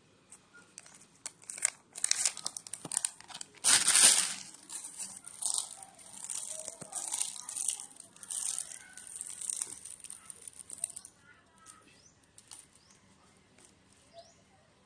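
Plastic wrapping crinkling and tearing in a run of sharp rustles, loudest about four seconds in and dying away after about eleven seconds.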